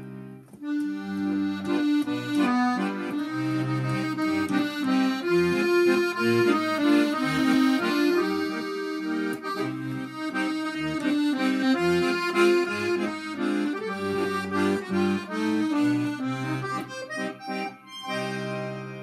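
Chromatic button accordion playing a tune with melody and bass accompaniment. Near the end it breaks off briefly, then sounds a held closing chord.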